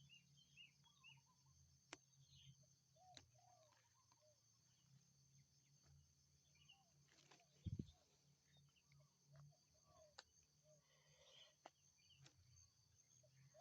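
Wild birds calling faintly in many short chirps, over a steady high insect drone. A few sharp clicks and a dull thump about eight seconds in.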